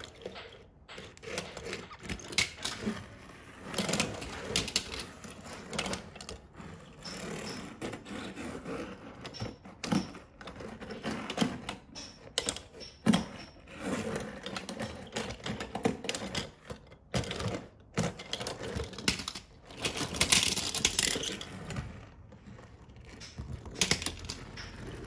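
Small diecast toy cars rolling and clattering on a wooden tabletop: an irregular run of clicks and rattles as metal bodies and plastic wheels knock against one another, with a busier burst of clatter about twenty seconds in.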